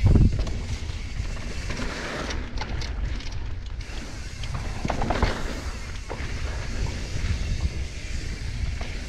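Mountain bike riding down a dry, rocky dirt trail: tyres crunching over dirt and rock and the bike rattling, with wind buffeting the microphone. A loud knock comes right at the start and a burst of clatter about five seconds in.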